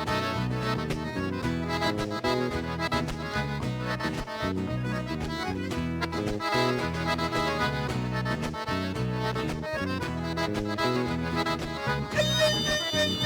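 Gaúcho vanera dance music with an accordion (gaita) leading over a steady bass-and-drum beat, in an instrumental passage without singing. About twelve seconds in, long held high notes with vibrato take over.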